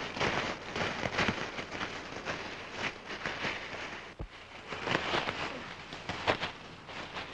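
Footsteps crunching and rustling through dry leaves and brush, a run of irregular crackles, with a brief break about four seconds in before the crunching resumes.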